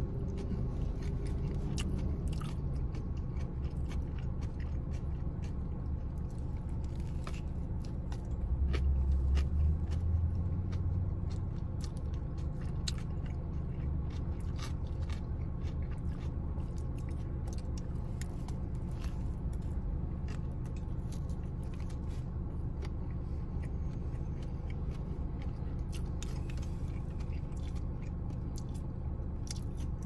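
Close-up chewing of a sub sandwich, with many short wet mouth clicks, over a steady low hum in a car cabin. A louder low rumble swells for a couple of seconds about nine seconds in.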